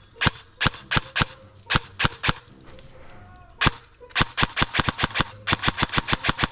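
Airsoft guns firing: sharp single shots, about three a second, a short pause near the middle, then a fast string of shots, about six a second, from about four seconds in.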